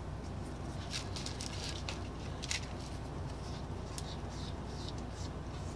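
Faint handling noises from a cracked rubber band saw tire being worked by hand: scattered small clicks and rustles over a steady low hum.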